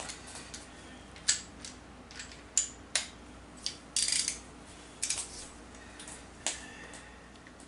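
Scattered sharp metallic clicks and clinks of hand tools being handled, with a short rattle about four seconds in, as a torque wrench is readied on the job.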